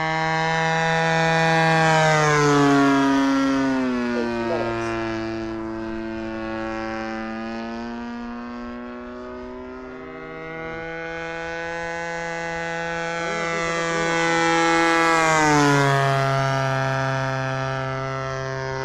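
Phoenix Zero A6M model airplane's DLE 20 RA single-cylinder two-stroke gasoline engine running hard in flight, making two low passes. Each time the engine note swells as the plane comes in and drops in pitch as it goes past, about two seconds in and again about fifteen seconds in.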